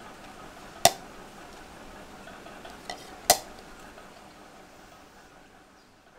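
Dough being kneaded by hand in a steel plate, with two sharp metallic clinks against the steel, about a second in and after three seconds, and a smaller one just before the second.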